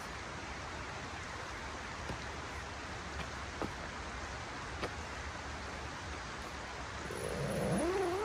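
Steady outdoor background hiss with a few light clicks, then near the end a cat meowing in a drawn-out call that rises and falls in pitch.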